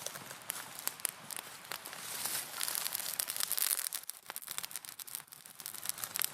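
Crackling and rustling of dry material: many sharp snaps over a hiss, with a louder rustling stretch about halfway through.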